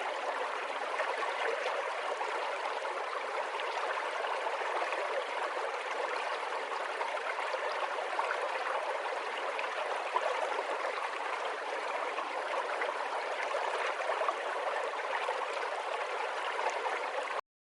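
Running water flowing steadily, a water sound effect, cutting off abruptly near the end.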